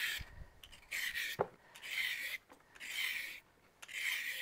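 Hand peeler scraping strips of skin off a raw carrot, in rasping strokes about one a second.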